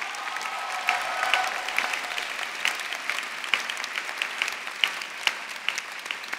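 Audience applauding, a dense patter of many hands with sharp single claps standing out.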